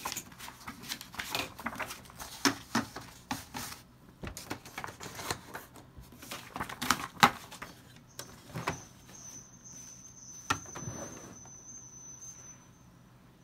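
Sheets of printer paper being handled and loaded into an Epson inkjet printer's rear paper feed: irregular rustling, tapping and clicking of paper. A thin, high steady whine sounds for several seconds in the second half.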